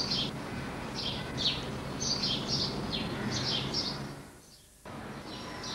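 Small birds chirping, short high chirps coming in quick groups several times a second, over a steady background hiss and low hum. The sound drops away briefly near the end, then the background comes back.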